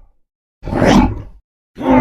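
Scary creature sound effect of a reptilian beast: one short roar lasting under a second, with the next one starting near the end.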